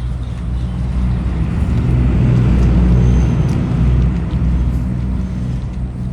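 A motor vehicle's engine running with a low, steady hum. It grows louder over about three seconds, then eases off.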